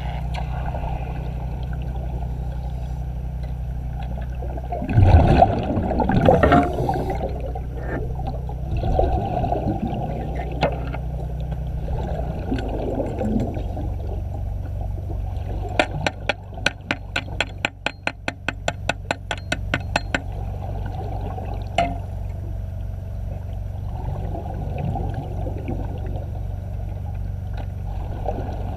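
Underwater sound during underwater arc welding: a steady low hum throughout. There are loud noisy bursts about five to seven seconds in, and a rapid run of sharp clicks, about six a second, around the middle.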